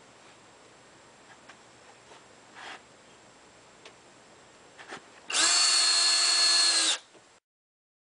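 Cordless drill-driver running a screw into the trailer's metal skin, a steady-pitched whine for about a second and a half that stops sharply. A few light clicks and taps come before it.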